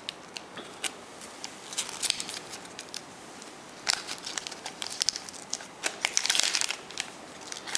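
A Panini sticker packet's wrapper being torn open by hand: scattered crinkles at first, then bursts of crinkling and tearing about four seconds in and again around six seconds.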